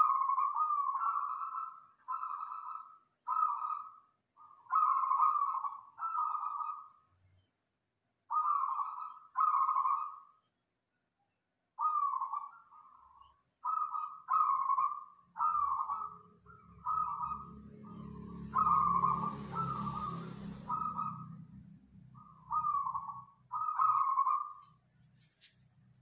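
Zebra dove (perkutut) cooing in a long run of short, repeated phrases with brief gaps between them. A low rumble with a wash of noise rises and fades under the middle of the run.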